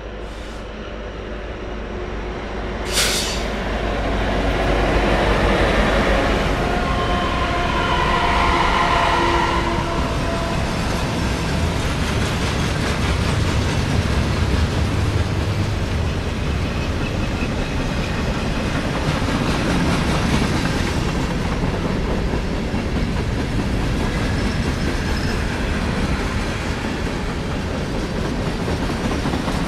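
Norfolk Southern freight train passing close by. The diesel locomotives go by first, their tones dropping a little in pitch, with a sharp bang about three seconds in. Then comes a steady rumble and clatter of freight car wheels on the rails.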